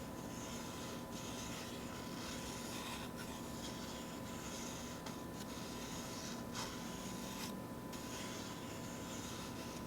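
Sheets of paper being torn slowly, one long tear after another with short pauses between. A brief click comes about six and a half seconds in.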